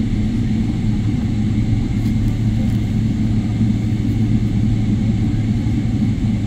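Steady low rumble and hum of a Boeing 777's jet engines at low thrust, heard from inside the cabin as the airliner taxis.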